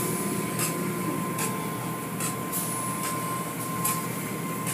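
Automatic tunnel car wash machinery running: hanging cloth wash strips swishing in a repeating rhythm a little more than once a second over a steady hum and whine of motors and water spray, heard from inside the car.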